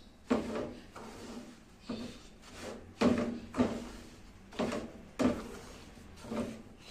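A spatula scraping and stirring semolina roasting in ghee around a metal pan, in repeated strokes about once a second, some louder than others.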